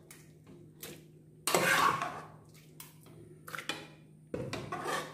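A spoon scraping and knocking against the inside of a pressure cooker as cooked mango pieces are scooped out into a blender jar: several separate bursts of clatter, the loudest about one and a half seconds in.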